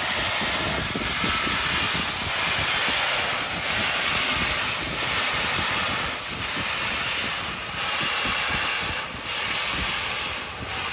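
Union Pacific Big Boy 4014, a 4-8-8-4 articulated steam locomotive, running: a loud, steady rush of steam and exhaust noise whose level swells and dips every second or so.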